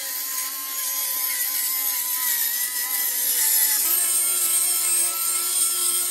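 Milwaukee circular saw cutting along a sheet of plywood, its motor running steadily under load. The tone shifts a little about four seconds in.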